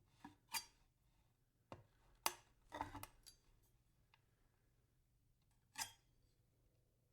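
Knife blade chopping onto wood: about half a dozen sharp chops at uneven intervals, the loudest a little over two seconds in.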